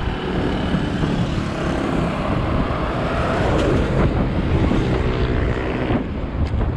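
Wind rushing over the microphone of a bike moving at speed, with a motorcycle engine running close by, strongest from about two and a half to six seconds in, its pitch bending as it goes past.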